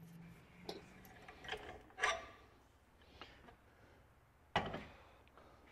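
Ridgid ratcheting die handle being worked to back the threading die off a freshly threaded bronze keel-bolt rod held in a vise: a few separate clicks and metal scrapes, with a sharper knock about four and a half seconds in.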